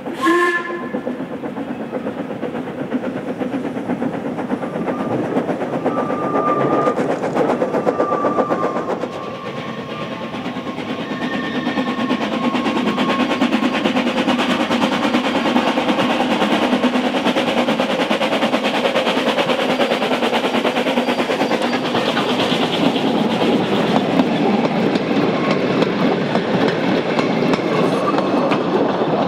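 Narrow-gauge 4-4-0 tank steam locomotive 'Isibutu' working a mixed train, with a short whistle toot at the very start. After that comes a steady rumble of the engine working and the wagons' wheels clattering over rail joints, which grows louder from about halfway through as the train passes close by.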